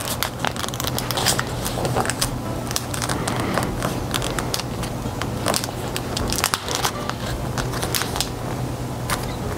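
Origami paper being folded and creased by hand: irregular crinkling and rustling with frequent sharp crackles as the folds are pressed flat. A steady low hum runs underneath.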